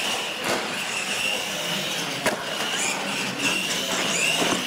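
Radio-controlled monster trucks racing at full throttle: a high motor and gear whine that wavers as they drive, with a couple of sharp knocks as trucks come down off the ramps.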